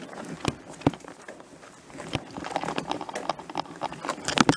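Crunching and scrabbling on loose dirt and leaf litter with irregular knocks and clatter, the loudest cluster near the end, as an electric mountain bike's rear tyre spins out on a steep climb: the motor assist gives too much power for the tyre to grip.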